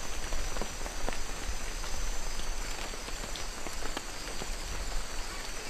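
Steady outdoor ambience of rain: a noisy hiss scattered with many small irregular clicks and patters, under a faint steady high-pitched drone and a low rumble.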